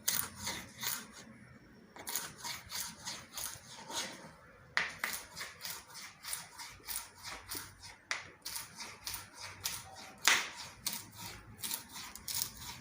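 Knife chopping celery stalks on a cutting board, a rapid even run of about four strokes a second with a couple of short pauses and a few harder strikes.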